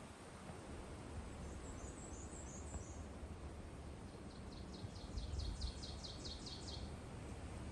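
Wind rumbling on the microphone, with a small songbird calling: a few high, thin notes about a second and a half in, then a fast high trill from about four to seven seconds in.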